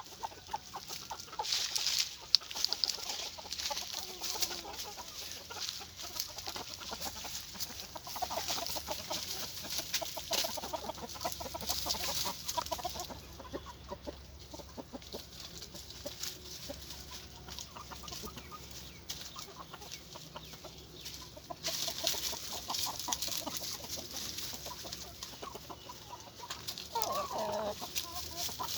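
A flock of local free-range chickens clucking continually, with many small clicks and one louder drawn-out call near the end.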